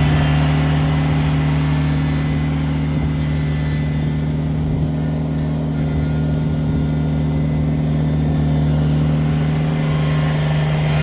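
An engine running at a steady speed, with a constant low hum, cut off abruptly at the end.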